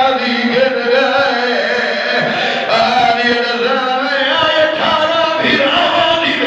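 A male zakir chanting a masaib lament into a microphone, one voice holding long, wavering melodic notes in drawn-out phrases.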